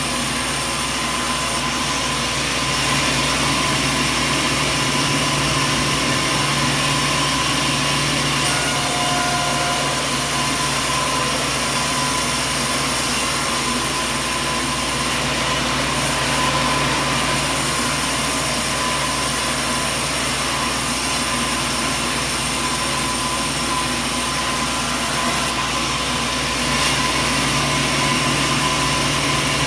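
Sawmill machinery running steadily: a loud, even mechanical drone with a constant low hum and a thin high whine, unchanging throughout.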